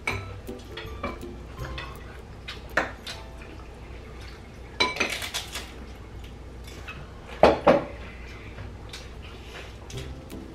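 Cutlery clinking and scraping on plates and bowls during a meal, in scattered short clinks, with two louder sharp knocks close together about seven and a half seconds in.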